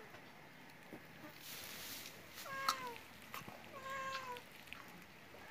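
A domestic cat meowing twice, about a second apart, each meow sliding down in pitch, with a few sharp clicks, one of them loud at the first meow.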